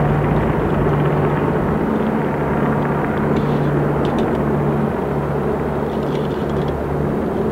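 A formation of five Sikorsky UH-60 Black Hawk helicopters flying overhead, their twin turboshaft engines and rotors making a steady, continuous sound with a low hum underneath.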